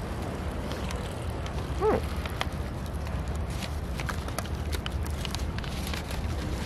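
Roadside street ambience with a steady low traffic rumble, and light crackling of a paper burger wrapper being handled. About two seconds in, a brief pitched cry rises and falls.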